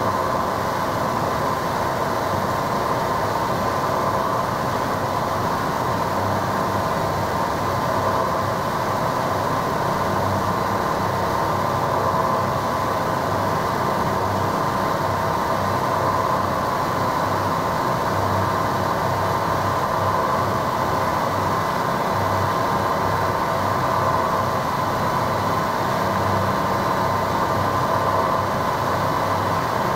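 Harsh noise music from a small Korg synth run through a Boss MT-2 Metal Zone distortion pedal, with a cheap radio through a Boss octave pedal: a loud, steady wall of distorted noise with a strong buzzing band in the middle and a rough, irregularly pulsing low end.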